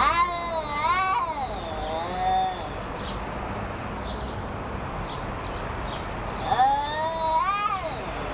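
Cat meowing in long, drawn-out yowls that bend up and down in pitch: two calls near the start and a longer one about six and a half seconds in.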